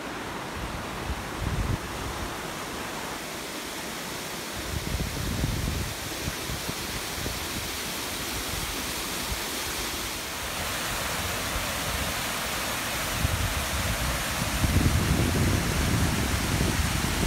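Water of a small stream running over a concrete weir, a steady hiss that grows louder about halfway through as the camera nears the spill. Low gusts of wind hit the microphone now and then, most strongly near the end.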